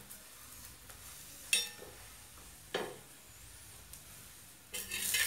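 A perforated steel spatula clinking and scraping on an iron tawa, with a paratha frying in oil. One metallic clink comes about one and a half seconds in, a scrape at about three seconds, and louder frying and scraping near the end.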